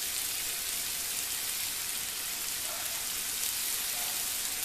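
Chopped onion and tomato frying in mustard oil in a nonstick pan: a steady sizzle.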